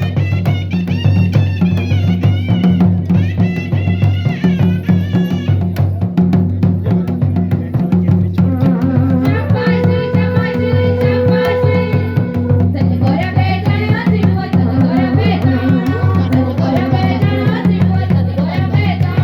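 Folk music with a driving drum beat and a melody over a steady low drone.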